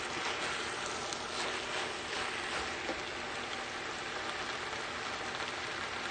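Rice, chicken and peppers frying in a pan with a steady sizzle as the rice is sautéed and toasted before the broth goes in, with a few light spatula scrapes in the first couple of seconds.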